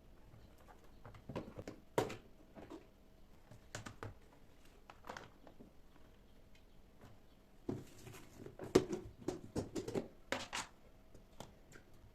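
Light clicks and knocks of kitchen items being handled and set down, with a busier run of clattering about eight to eleven seconds in.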